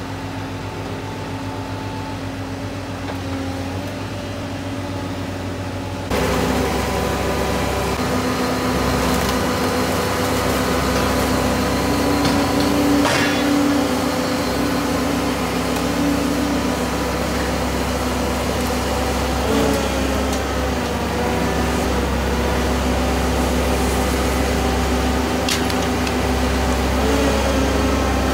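Heavy scrapyard machinery, a tracked mobile shredder and a grab-arm excavator, running with a steady diesel hum, with an occasional sharp metal clank. The sound steps up louder about six seconds in.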